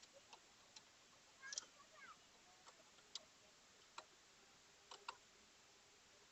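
Faint, sparse metal clicks, about one a second with pauses, from a spanner working the motorcycle's main axle nut as it is tightened fully.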